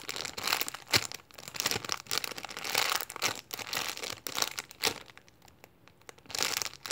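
Clear plastic bag crinkling as a packaged croissant squishy is handled and turned over in the hands. It pauses for about a second near the end, then starts again.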